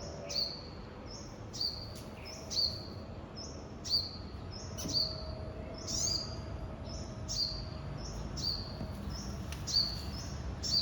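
A bird calling with a short high chirp, repeated evenly about once a second, over a low steady background hum.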